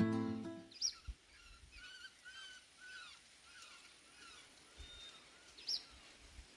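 Birds calling: a quick series of short, arched whistled notes, about three a second, with two sharper high notes, one near the start and a louder one near the end. Guitar music fades out in the first moment.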